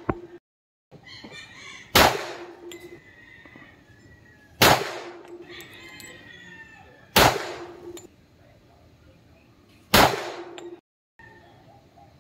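Four semi-automatic pistol shots, slow and deliberate, about two and a half seconds apart, each followed by the brief ring of a steel plate target being hit.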